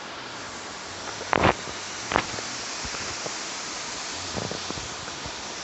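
Waterfall rushing steadily. Two loud knocks about a second and a half and two seconds in, and a few fainter ones near the end.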